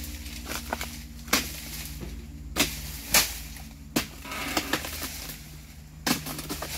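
Oil palm harvesting chisel (dodos) on a long pole hacking into the woody frond bases of an oil palm: about five sharp chopping strikes spread over several seconds, with lighter knocks and rustles between.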